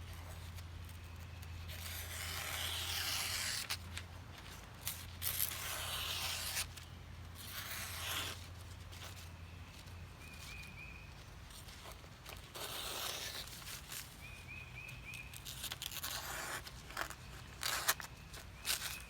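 Swiss Army knife blade cutting or scraping through material in several hissing strokes of a second or so each, with pauses between them, as the freshly sharpened edge is tried out.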